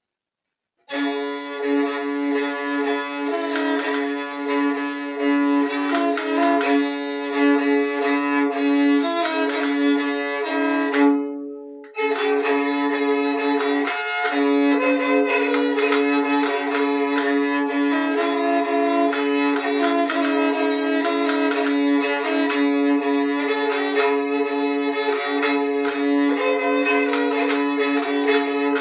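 Moraharpa with sympathetic resonance strings, a bowed keyed fiddle, playing a melody over steady drone strings with a rich ring of overtones. The playing fades and breaks off briefly a little before the middle, then starts again abruptly.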